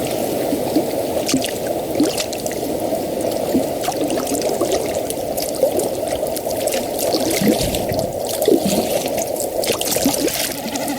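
Water trickling steadily, with many small gurgles and drips on top.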